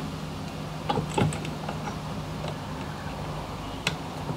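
A few light, sparse clicks and taps as screws and a plastic fishfinder mounting bracket are handled and set in place, over a faint steady low hum.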